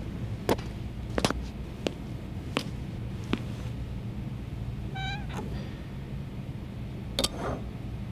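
About five sharp knocks spaced roughly 0.7 s apart, then a short meow about 5 s in and another brief cry near the end, over a steady low hum.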